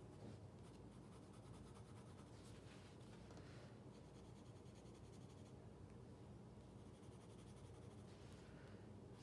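Faint scratching of a colored pencil drawing on sketchbook paper, in a few short strokes.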